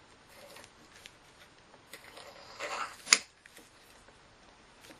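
A rusted bolt, loosened by heating, being turned out with locking pliers: faint grating and scraping of metal on metal, a louder scrape a little past halfway, then a single sharp metallic click about three seconds in.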